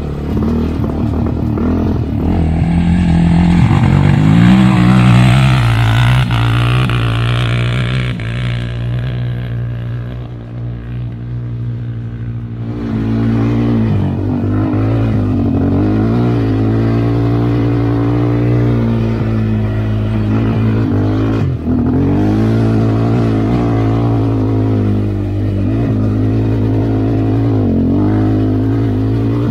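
ATV engine running under changing throttle on a trail climb, its pitch rising and falling, with a quieter stretch about a third of the way in.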